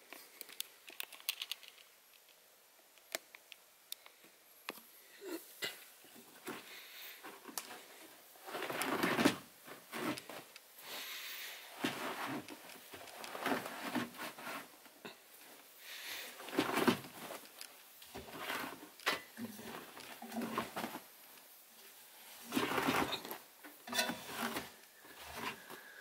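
Spun-dry laundry being pulled by hand out of a front-loading washing machine's drum: irregular rustling and swishing of fabric, with a few light clicks in the first few seconds.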